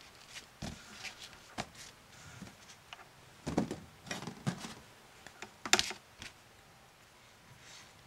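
Hand-handling noises of bread and a plastic bread-shaping mold on a table: scattered soft taps and rustles as the crust is pulled away and the cut-out set down, and a sharper click a little before six seconds.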